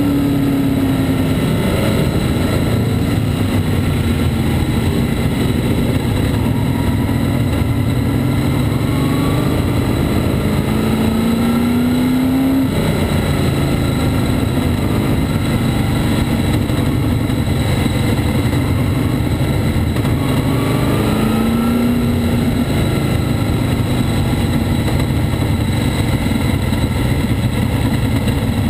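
Engine of a winged open-wheel race car at racing speed, heard from on board: a loud, continuous drone whose pitch climbs several times as it accelerates out of the turns.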